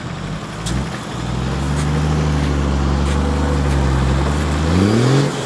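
Nissan Patrol's engine revved hard and held at a steady high pitch as the stuck SUV tries to pull out of deep slushy snow, then revving higher near the end before dropping off.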